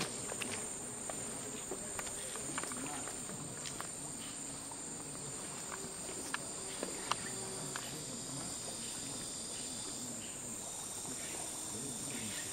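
Insects in rainforest vegetation keeping up a steady high-pitched drone. Scattered faint clicks and knocks sound over it, two of them louder about six and seven seconds in.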